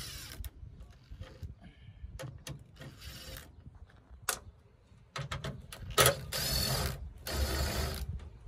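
Makita cordless impact driver hammering in short runs, backing out a tail light mounting bolt. There is a brief burst and a click partway through, then two longer runs of about a second each near the end.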